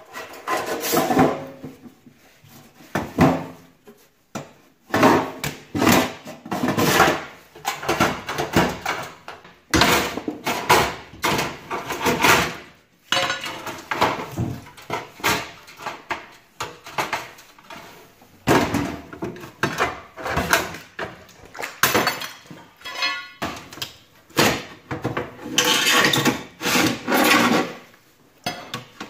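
Metal safety deposit boxes clanking, scraping and rattling as they are handled and pulled from their compartments. Irregular knocks and clatters come in clusters throughout.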